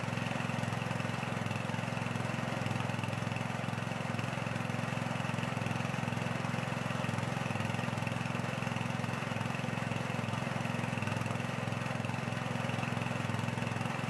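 Small engine running steadily at a constant speed.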